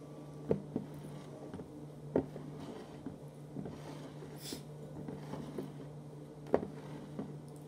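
Glass beer mugs being set down and shuffled around on a table: a few sharp glass-on-table knocks over a steady low hum, with a short hiss about halfway through.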